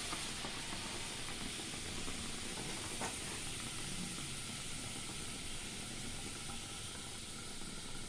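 Hot milk tea sizzling and frothing in a heated clay pot: a steady hiss that slowly dies down.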